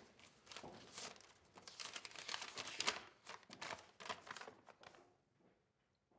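Paper rustling and crinkling as a folded letter is handled and opened out, in quick, short rustles that stop about five seconds in.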